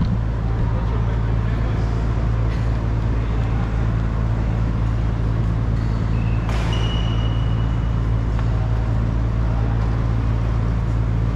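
A steady low hum and rumble. Near the middle there is a short sharp sound followed by a brief high squeal.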